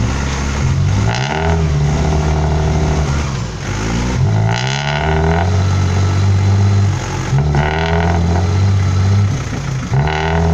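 Dump truck's diesel engine revving hard in repeated surges, rising and falling about every three seconds, as the truck strains to climb out of deep mud where it is bogged down.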